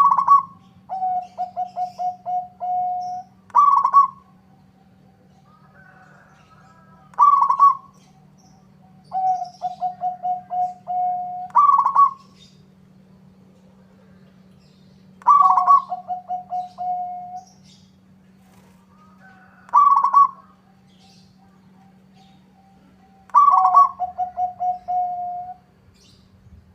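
Zebra dove (perkutut) cooing in its typical song. Each phrase opens with a loud higher note and runs into a quick string of lower staccato coos, and the phrases repeat every few seconds. A faint steady low hum runs underneath.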